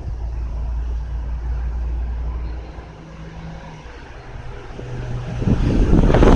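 Low rumble of a motor vehicle's engine going by, fading after about three seconds. Near the end, wind noise starts buffeting the microphone.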